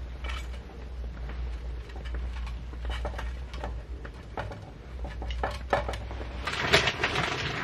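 Scattered light knocks and clinks of cookware being handled, with a louder clatter of pots and pans near the end, over a steady low hum.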